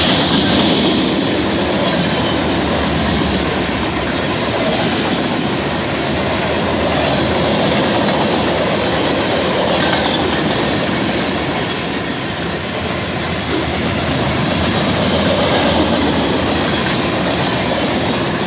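Freight train's cars, cement-carrying covered hoppers, rolling past close by: a loud, steady noise of steel wheels on rail.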